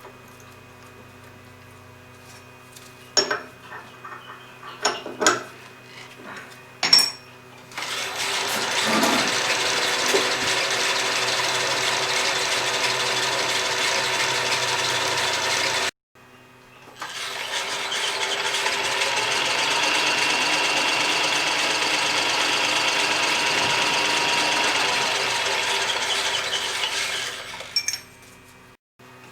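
A machine spindle is running with a steady hum and a few sharp metal clinks while a workpiece is set. Then comes a long stretch of loud, steady grinding noise with a faint whine as a drill bores a hole through a small metal block. It stops abruptly and then comes again in a second long run near the end.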